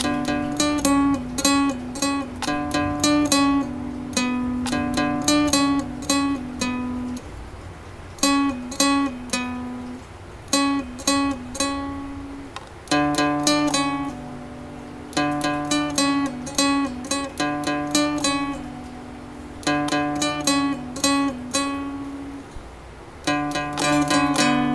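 A short tune plucked on a Seagull Merlin dulcimer: single melody notes over a steady low drone, played in short phrases with brief pauses between them.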